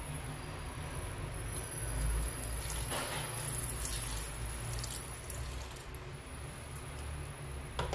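Water pouring into a stainless steel pressure cooker pot over spareribs and potatoes, splashing most strongly about three to four and a half seconds in.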